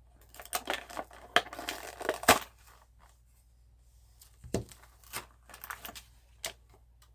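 A die-cast car blister pack being torn open: plastic and card packaging crinkling and ripping in a run of bursts over the first couple of seconds, then a few sharp clicks and taps as the pieces are handled.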